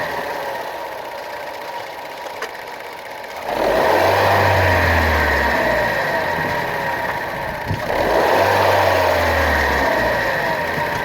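Engine idling and blipped twice, the revs jumping about 3.5 seconds and 8 seconds in and falling back each time, with a short knock just before the second rev. The engine is being revved to check a suspected bad motor mount.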